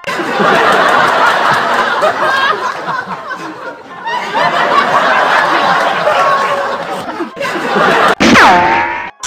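Canned laugh track: many people laughing together, dipping briefly about four seconds in. Near the end a loud cartoon-style sound effect swoops down in pitch and levels off.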